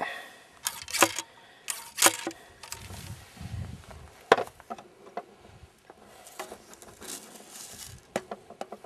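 A series of sharp clicks and knocks from muzzle-loading tools being handled: the loudest come about a second and two seconds in, another just after four seconds, and a few lighter taps near the end.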